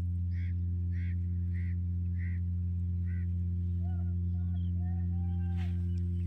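A bird calling six times in an even series, about one call every half second, over a constant low mechanical hum. Later come a few softer, lower tones and a single sharp click near the end.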